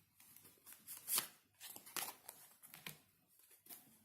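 Tarot cards being handled: shuffled and laid out, a series of short papery flicks and slides, the sharpest about a second in.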